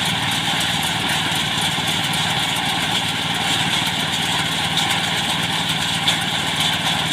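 Small engine of a rice threshing machine running steadily.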